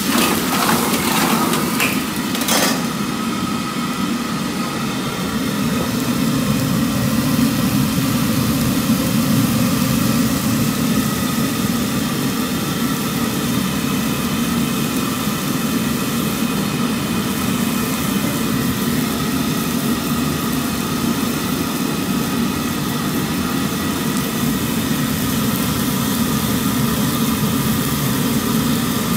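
Steady low roar of a commercial gas wok burner under a black wok of stir-frying vegetables, with sizzling over it. A metal ladle scrapes and clatters against the wok a few times in the first three seconds.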